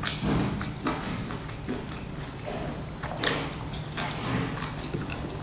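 Close-miked eating of a pan-fried dumpling: a sharp sound right at the start and a louder, noisier one about three seconds in as it is dipped and bitten, with small chewing clicks between. A low steady hum runs underneath.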